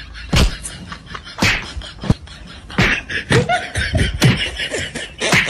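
A string of about eight hard slap and punch hits on a person, coming roughly every half second to a second, as one man beats another.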